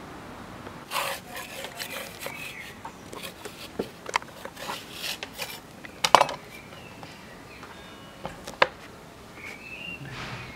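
Hands and tools moving over a chipboard work board and clay slabs: scraping and rubbing, with a few sharp taps, the loudest about six seconds in and again a little past eight seconds.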